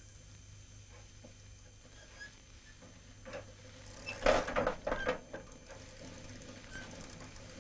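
Old bicycle rattling and clattering over a rough dirt track, loudest in a burst of clicks and knocks about four to five seconds in.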